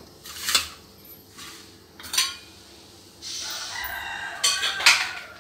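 Wooden spatula knocking and scraping against a metal kadai of water and drumstick leaves, a few sharp strikes in the first half. About three seconds in comes a long, drawn-out animal call lasting about two seconds.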